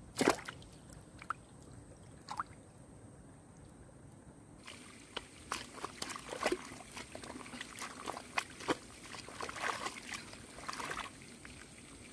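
Shallow muddy water splashing and mud squelching as feet and hands work in a narrow ditch: one sharp splash just after the start, a few single drips, then from about five seconds in a busy run of irregular splashes and squelches.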